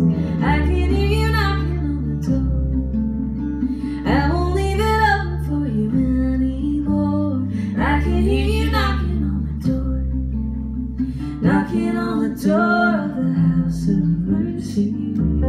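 Live acoustic folk music: a woman singing over strummed acoustic guitars and an upright bass, in several long phrases.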